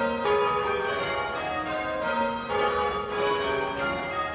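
A ring of church tower bells rung by hand from ropes, ringing rounds: bell after bell strikes in steady succession, each tone overlapping the last.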